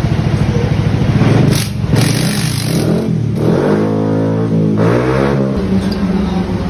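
A motorcycle engine running and being revved, its pitch dropping and climbing again around the middle.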